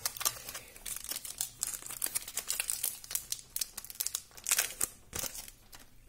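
Crinkling and tearing of a foil trading-card pack wrapper being handled, a dense run of quick, irregular crackles, loudest about four and a half seconds in.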